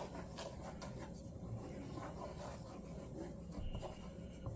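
A utensil stirring coconut-milk curry sauce in a nonstick pot, with faint, irregular scraping and rubbing against the pot.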